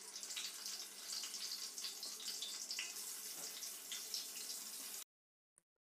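Halved brinjals frying in hot oil in a kadai: a steady sizzling hiss with small crackles, which cuts off abruptly about five seconds in.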